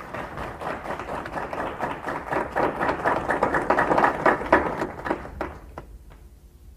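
Audience applauding: a dense patter of many claps that dies away about five seconds in.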